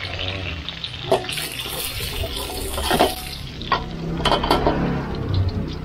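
Pickled garlic stir-frying in a wok: a steady hiss broken by several sharp clanks of a metal spatula against the pan.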